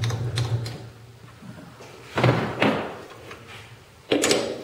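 Small metal lathe's motor hum fading out as the spindle comes to a stop, then sharp knocks about two seconds in and again near the end.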